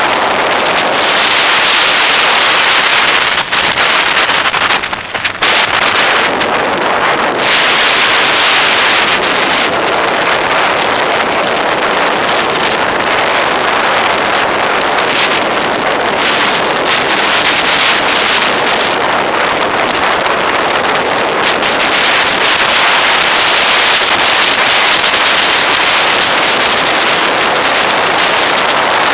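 Wind buffeting the microphone of a camera on a motorcycle moving at road speed: a loud, steady rushing hiss that dips briefly about four to five seconds in.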